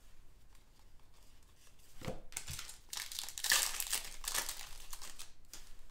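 Wrapper of a football trading card pack being torn open and crinkled by hand: a few short rustles about two seconds in, then a longer burst of crinkling.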